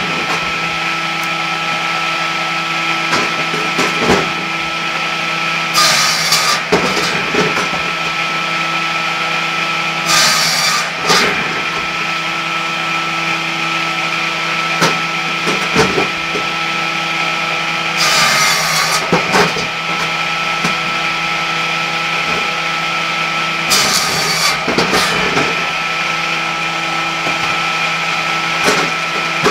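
A homemade belt-driven firewood circular saw, with a 600 mm blade and a 4 kW motor, runs with a steady hum. It cuts through a log four times, each cut a harsh burst lasting about a second. Short knocks of wood and the feed table come between the cuts.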